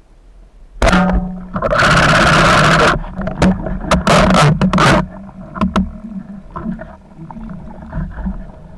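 Loud rushing, splashing water noise with a few sharp knocks, heard with a spearfishing freediver in the water. It starts suddenly about a second in, and the loudest stretch ends after about three seconds.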